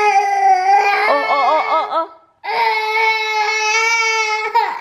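Toddler crying in two long wails: the first wavers and breaks off about two seconds in, and after a quick breath a second, steady wail runs until just before the end.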